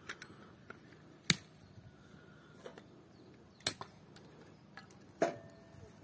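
A few sharp clicks or knocks at irregular intervals over a quiet background, the loudest near the end with a short ring after it.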